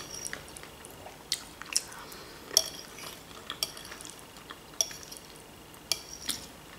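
Metal fork clinking against a plate as food is picked up: about seven sharp clinks, roughly a second apart, some with a short ring.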